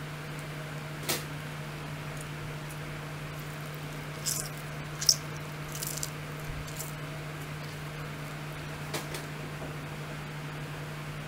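Lime wedges squeezed by hand over a stone mortar of chilli paste: a handful of short wet squishes and clicks, the sharpest about five seconds in, over a steady low hum.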